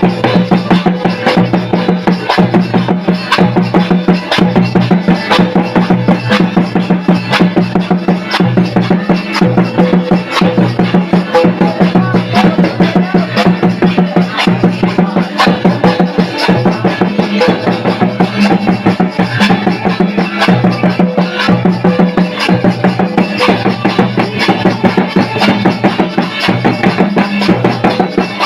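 Music with a steady, dense drum beat throughout.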